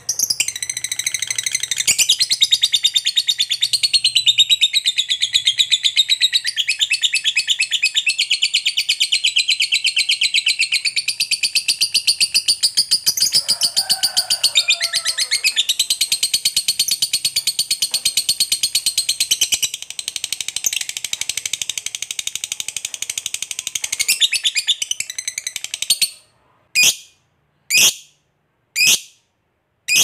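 Fischer's lovebird giving a long ngekek: one unbroken, very fast high-pitched chattering trill that runs for about twenty-six seconds, then breaks off into a few single sharp chirps about a second apart near the end.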